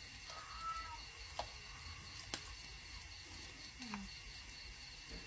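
Night insect chorus: a steady high trill pulsing evenly, about four times a second. There are a few faint clicks of utensils.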